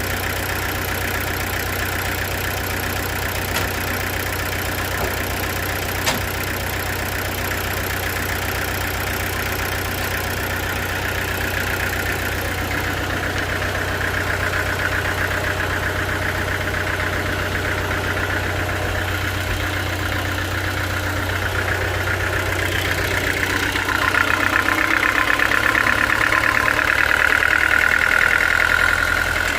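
A sawmill engine running steadily. In the last few seconds a higher whine grows louder over it.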